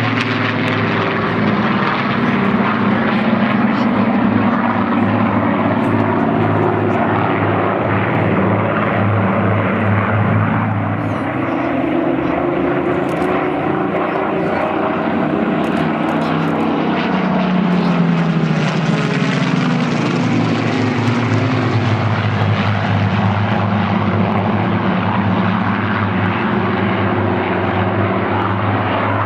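Piston aero engines of a formation of Spitfire and Hurricane fighters droning overhead as they fly past. The pitch bends and slides down through the middle as the aircraft pass.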